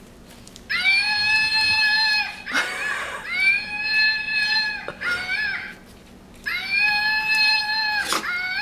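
A screaming-monkey plush toy's sound box plays its recorded monkey screech as a dog mouths it: three long, high, steady shrieks, with short wavering cries between them.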